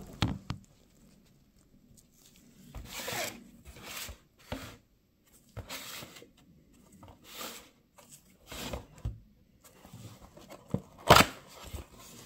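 Cardboard watch boxes being handled and shifted on a wooden table: a run of short scraping and rustling noises with a few sharp knocks, the loudest knock near the end.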